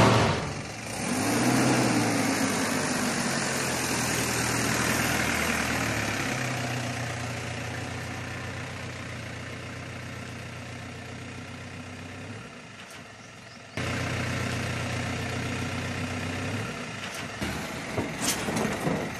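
A sudden rush of noise at the very start, then a vehicle engine running steadily with a low hum, heard from inside the passenger compartment. The sound cuts off abruptly about fourteen seconds in and comes back a little louder.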